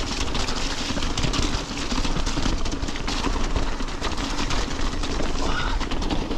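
Mountain bike riding down a rocky, wet track: a steady rumble of tyres on stone with constant fine rattling and clattering from the bike, under a rush of wind noise.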